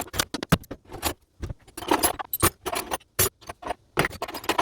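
Old metal hand tools clinking and rattling against each other and the wooden box as they are handled and shifted: a quick, irregular run of sharp clicks and knocks.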